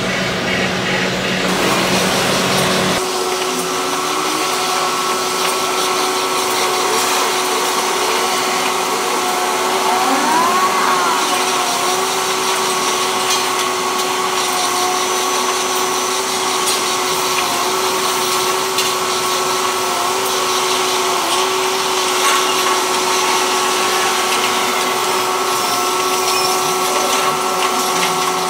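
Crawler-mounted rotary drilling rig running: a steady mechanical whine held over a constant noise. The low rumble drops away about three seconds in, and a short rising and falling whistle-like tone comes in near the middle.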